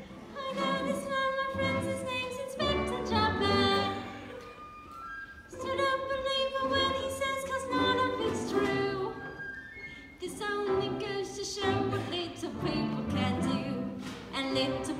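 Live orchestra with strings playing a slow ballad while a soloist sings, heard from the audience seats in a reverberant auditorium.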